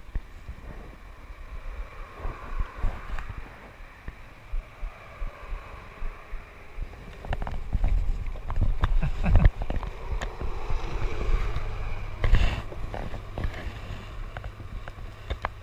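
Irregular light clicking of metal pincers bouncing against the GoPro's plastic housing as the angler casts, over a low wind rumble on the microphone.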